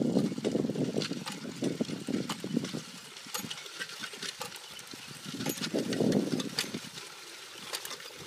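Horse-drawn disc harrow pulled by a team of draft horses over tilled soil: a rough rumbling clatter with scattered metallic clinks. It is loudest at the start and swells again about six seconds in.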